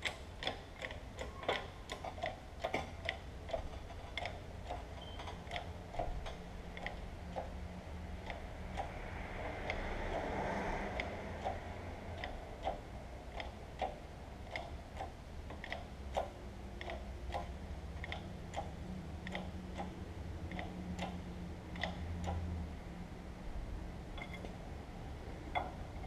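Bottle-jack hydraulic shop press pumped by its long handle, ticking with each stroke about twice a second as it presses an axle seal into its housing. A brief rushing noise swells up about halfway through.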